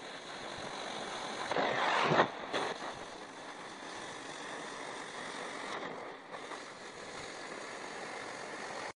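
Oxy-fuel cutting torch cutting through steel plate, a steady hiss from the oxygen jet and the molten slag it blows out. It grows louder for about half a second, around two seconds in.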